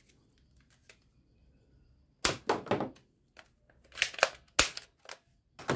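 Plastic toy foam-dart gun being worked by hand: a run of sharp plastic clacks and snaps in two clusters, about two seconds in and again about four seconds in.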